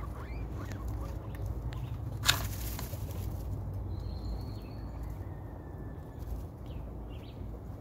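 Guinea pig pups shuffling through hay and nibbling pellets, small scattered rustles and ticks over a steady low rumble. One sharp crackle about two seconds in.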